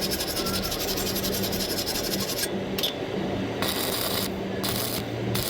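Electric arc welding: a crackling hiss that runs for the first half, then comes back in three short bursts, over a steady low hum.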